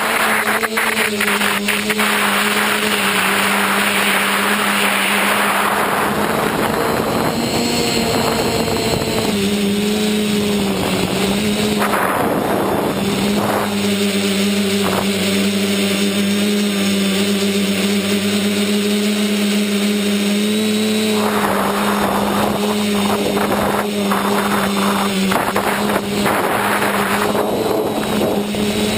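Motor and propeller of a radio-controlled model aircraft running at a steady pitch, heard from on board, with wind noise on the microphone swelling and fading as it flies.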